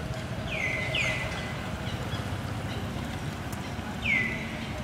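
A bird calling: short notes sliding down in pitch, two in quick succession about a second in and a louder one near the end, over a steady low background rumble.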